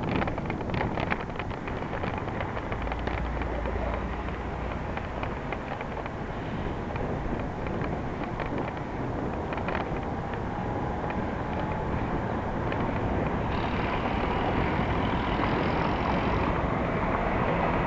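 Road traffic and wind noise heard from a moving bicycle on a city street. There are some clicks and rattles in the first few seconds and a faint steady whine in the second half.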